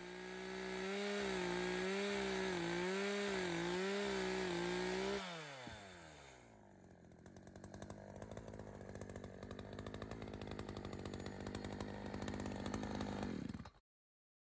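Chainsaw at full throttle cutting through a log, its pitch wavering under load. About five seconds in, the revs fall away. It then runs on, steadier and quieter, until the sound cuts off abruptly near the end.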